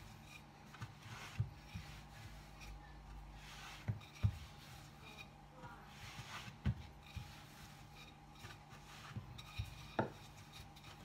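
Wooden rolling pin rolling out dough on a stone countertop: soft rubbing strokes broken by a few sharp wooden knocks, the loudest near the end.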